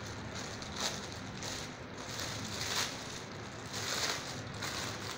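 Crinkling and rustling of an Easter egg's metallic plastic wrapper being handled and pulled open, in several short bursts.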